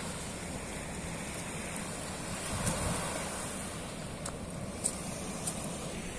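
Surf breaking and washing onto a coral-rubble beach, with wind buffeting the microphone. The wash swells up about halfway through, and a few sharp clicks come in the second half.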